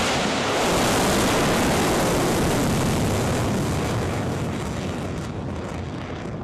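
Ballistic missile's rocket motor at launch: a loud, steady rushing noise that gradually fades over the second half as the missile climbs away.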